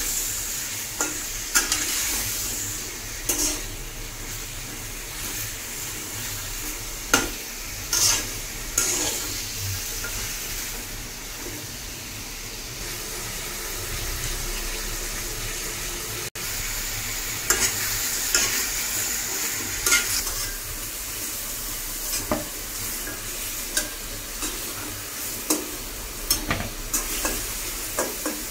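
Chicken pieces sizzling in hot oil in a metal wok, with a steady hiss. A metal spatula scrapes and knocks against the pan in repeated short clicks as the pieces are stirred and turned.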